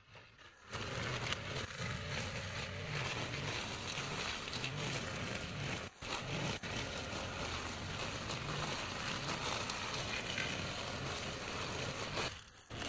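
Brush cutter engine running at high revs as its cutting head mows through wet grass and weeds, starting about a second in, with a brief dip near the middle and falling away near the end.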